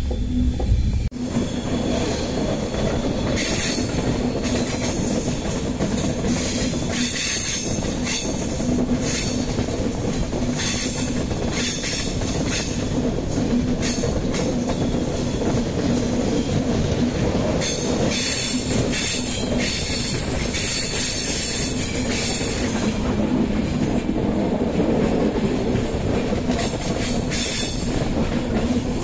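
Express passenger train running on the rails: a steady rumble with wheels clacking over rail joints and squealing now and then.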